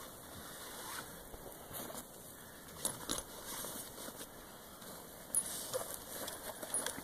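Rustling and small clicks and clinks of radio gear being handled and stowed in a nylon backpack, with a few sharper taps about three seconds in and again past five seconds.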